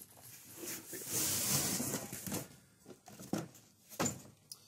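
Cardboard packaging rustling and scraping as a four-blade boat propeller is lifted out of its box, with a few sharp knocks near the end.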